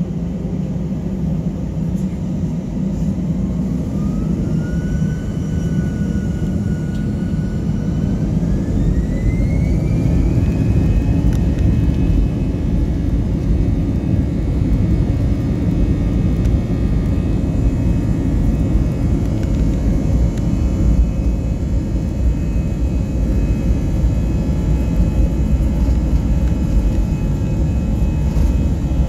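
Airbus A320 jet engines spooling up for takeoff, heard from inside the cabin: a whine rises about three seconds in, holds for a few seconds, then climbs again and settles at a higher steady pitch. Under it the low rumble grows as the takeoff roll gets under way.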